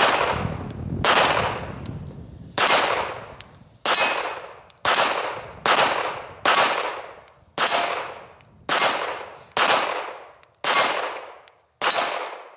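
Pistol fired in a slow, steady string, about a dozen shots roughly a second apart, each sharp crack trailing off over most of a second.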